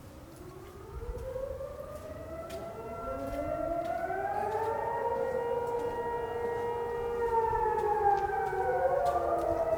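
Wailing siren in the manner of a civil defense siren: several overlapping tones wind slowly up in pitch, hold steady, then begin to fall near the end, growing louder as they rise.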